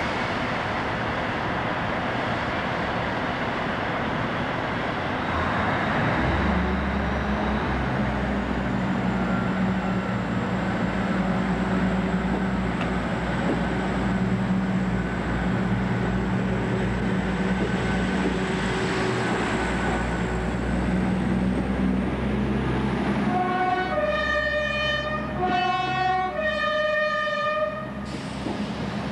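British Rail Class 158 diesel multiple unit's underfloor engine running at the platform, its low hum stepping up and holding about six seconds in as the unit powers up. Near the end a two-tone train horn sounds twice, each time a higher note dropping to a lower one.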